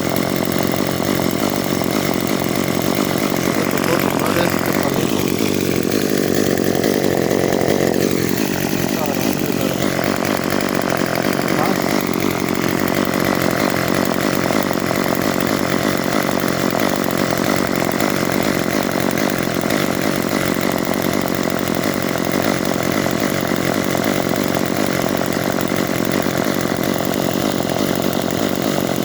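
Chainsaw running steadily at high revs, its tone shifting for a few seconds about four seconds in.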